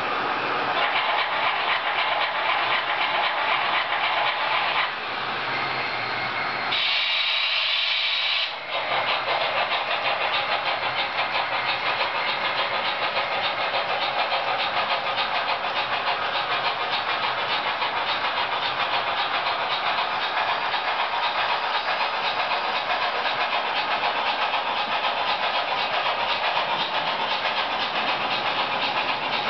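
Model trains running on a layout: a steady, even rush of small motors and wheels on the track, with a brief brighter hiss about seven seconds in.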